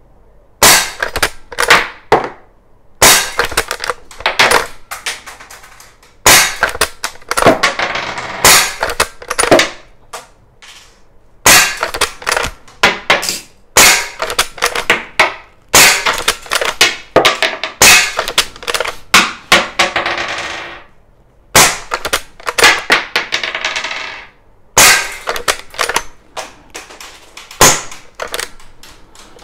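Umarex Legends Cowboy lever-action CO2 BB air rifle firing a string of shots, each a sharp pop. Between shots come the metallic clacks of the lever being worked, which cycles the action and ejects the spent shell cartridge.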